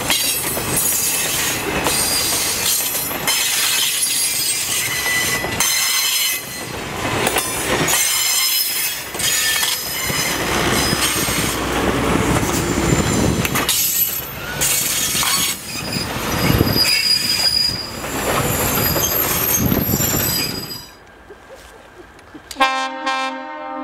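Railroad cars rolling past close by, their steel wheels squealing and clattering over the rail joints. The noise drops away sharply about 21 seconds in as the end of the train passes. Near the end a train horn sounds.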